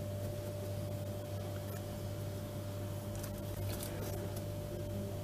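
Steady low hum of room tone, with a few faint clicks and rustles from hands pressing floss halva onto the sides of a cake on a plate, mostly about three to four seconds in.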